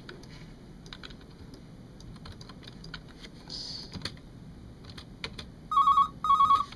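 Scattered computer keyboard and mouse clicks from editing, then near the end a telephone-ring sound effect played back: two short, trilling double-ring bursts about half a second apart, much louder than the clicks.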